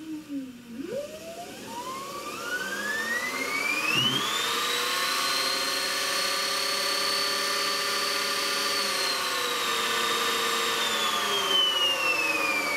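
Electric motor of a 2009 Zero MX motorcycle, driven on the bench by its motor controller from a single row of batteries, whining as it spins up over about four seconds. It holds a steady high whine, dips slightly, then begins winding down near the end.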